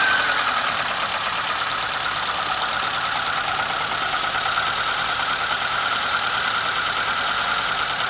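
Freshly rebuilt four-cylinder engine of a Daewoo Lanos/ZAZ Sens-type car idling steadily, just after being started.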